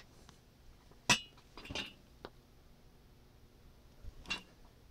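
Light metallic clinks of small hand tools and tiny parts being set down on a workbench. There is a sharp clink about a second in, a few lighter ones over the next second, and two more near the end.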